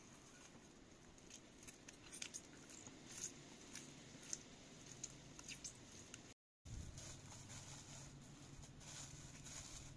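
Bread dough being squeezed and kneaded by hand in a glazed ceramic bowl: faint soft squishing with scattered light clicks and pats. The sound cuts out for a moment about two-thirds of the way through.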